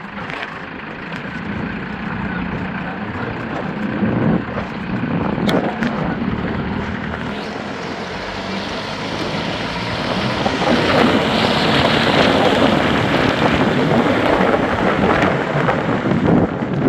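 A truck's engine and road noise with wind rushing over the microphone, getting louder about ten seconds in.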